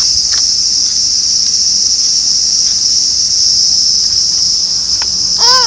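A loud, steady chorus of cicadas shrilling without a break, with a toddler's short voice rising and falling right at the end.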